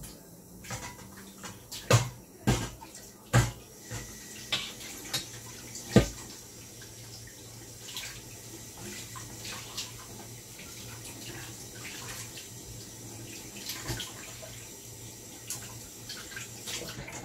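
Lamb and rice biryani boiling in a wide pan under a glass lid: steady bubbling and hiss, with several sharp pops in the first six seconds and a few fainter ones later.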